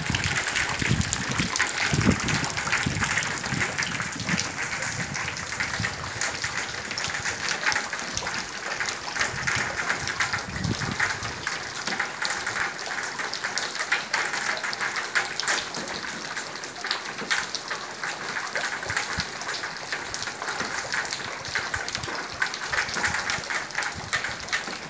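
Heavy rain falling steadily: a dense, even hiss of drops with many small splatters and ticks. There are a few low thumps in the first few seconds and again about ten seconds in.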